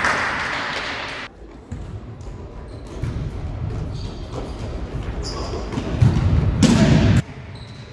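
Futsal ball being kicked and bouncing on a hard indoor court, with players calling out, all echoing in a large sports hall. A louder burst about six seconds in cuts off suddenly.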